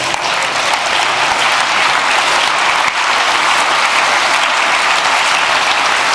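Large audience in a hall applauding: many hands clapping at a steady level.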